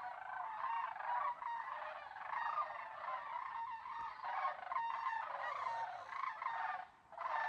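A flock of geese honking, many calls overlapping in a continuous clamour, easing briefly near the end.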